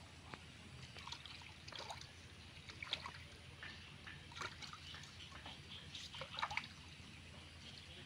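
Hands splashing and sloshing in shallow stream water while a small fish is rinsed and cleaned, over the trickle of the stream. Irregular small splashes and drips, with a few louder ones about three seconds in and again past six seconds.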